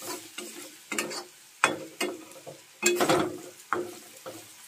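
Metal spatula scraping and clinking against a metal kadhai as vegetables and masala are stir-fried in oil, in about five irregular strokes.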